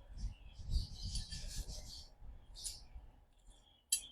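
Close-up chewing of a mouthful of a tortilla wrap, with wet mouth clicks and smacking, thickest in the first two seconds, and one sharp click near the end.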